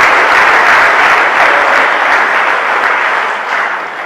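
Congregation applauding and cheering loudly, fading near the end.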